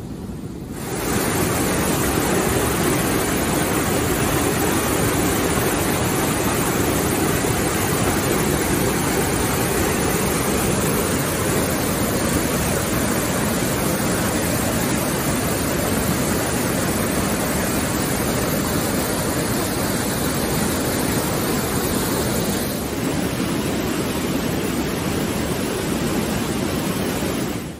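Brown floodwater rushing over a weir: a loud, steady rush of churning white water, the river in spate. It starts about a second in and drops a little in level near the end.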